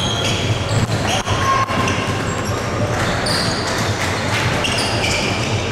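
Basketball game play in a hall: many short, high-pitched sneaker squeaks on the court and a few knocks of the ball bouncing, over steady hall noise.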